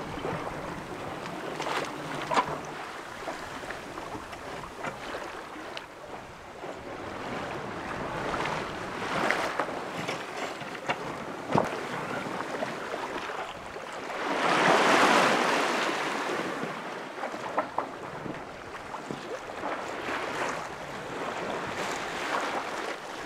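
Water washing and swishing along a sailboat's hull under sail, swelling into a louder wash about two-thirds of the way through, with wind on the microphone and a few light clicks.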